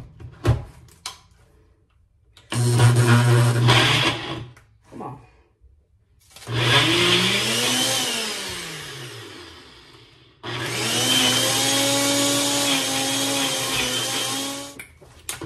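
Ninja personal blender blending a strawberry, oatmeal and milk smoothie in three runs. The first is short, the second climbs in pitch and then sinks as it fades, and the third runs steady before cutting off near the end.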